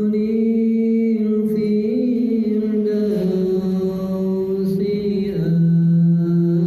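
Background music: a slow, wordless vocal chant of long held notes, each note shifting to a new pitch every one to two seconds.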